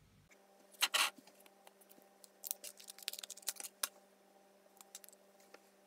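Desk handling sounds: two sharp clicks about a second in, then a run of light clicks and scratches as the drawing board is shifted on the table and a fine India-ink pen is readied. A faint steady hum runs underneath.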